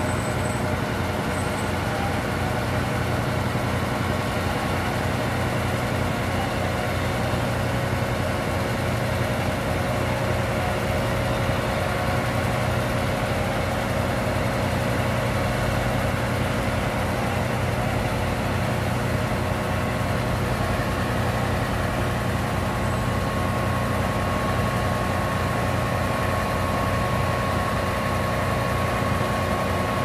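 Heavy asphalt paving machinery running steadily: a constant diesel engine rumble under a broad hiss. A thin steady whine comes up in the latter part.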